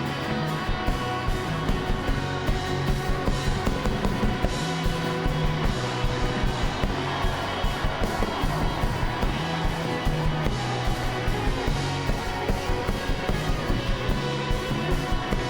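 Live rock band playing an instrumental passage with no singing, over a steady beat.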